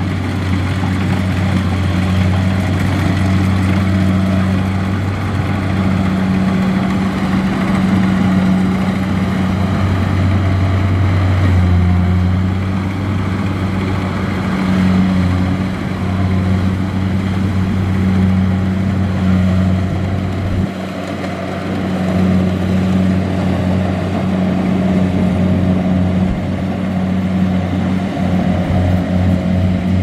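Kubota DC70 rice combine harvester's diesel engine running steadily under load while it cuts and threshes rice, a deep, even drone with mechanical clatter over it. The drone dips briefly about two-thirds of the way through.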